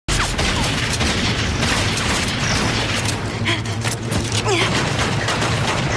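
Loud action-scene sound mix: repeated gunshots and booms in quick, irregular succession over a steady low rumble.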